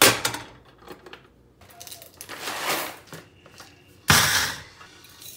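Kitchen handling sounds around a stovetop kettle and a Ninja personal blender: a sharp clank at the start, a rattling swell about two to three seconds in, and a short loud burst about four seconds in that fades quickly.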